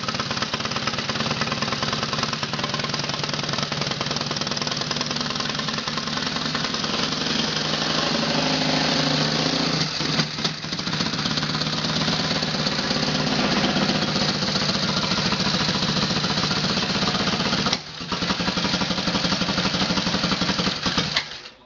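1925 Harley-Davidson JD's V-twin engine running fast and rough, with a rapid firing beat, on its first run in decades. It dips briefly twice and stops near the end.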